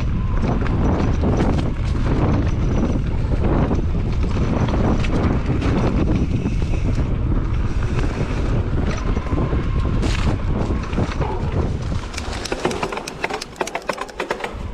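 Wind buffeting the microphone of a mountain bike rider's camera while riding the trail, a heavy low rumble. About twelve seconds in the rumble drops away and a quick run of sharp clicks and rattles is heard.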